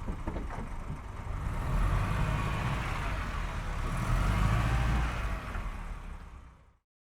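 A tuneless, noisy rumble, heaviest in the low end, that swells twice, then fades away and cuts off to silence near the end.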